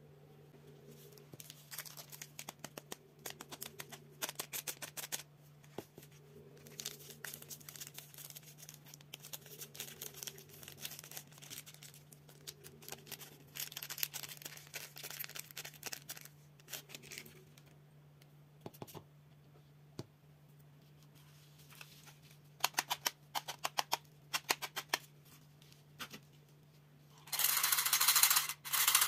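A Milky Way bar's plastic wrapper being torn open and crinkled by hand, in runs of crackling and rustling over the first two-thirds. A few sharp clicks follow, and near the end there is a louder, dense rattle as a small tin of mints is picked up.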